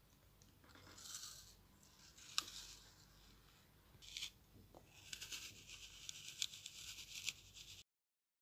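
Faint rustling and crinkling of handled packaging, with a sharp click about two and a half seconds in and a denser run of crinkles in the second half, then the sound cuts off abruptly just before the end.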